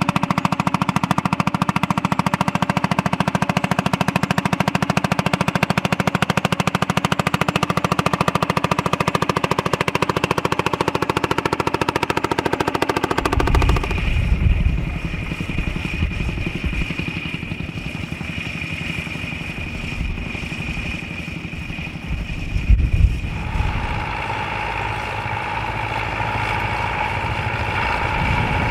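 Vintage tractor engine running under load with a rapid, even beat of firing strokes as it pulls a plough. After about 13 seconds this gives way to wind buffeting the microphone over tractor engines running further off, with a gust near the end and a nearer engine coming in over the last few seconds.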